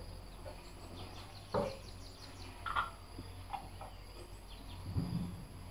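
A few light knocks and clinks, spaced out, of a metal can and a paint spray gun being handled while paint is poured into the gun's cup. Faint birds and insects chirp in the background.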